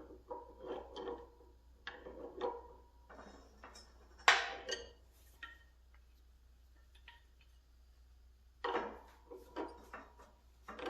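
Steel tools and hydraulic cylinder parts clanking and clinking with a ringing metal tone while a cylinder is being taken apart. A single sharp metal strike about four seconds in is the loudest sound. After a few quiet seconds, more clanking follows near the end.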